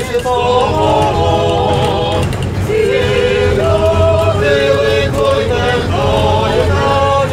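A group of voices singing a Ukrainian Christmas carol (koliadka) together, over the steady low rumble of a tram running.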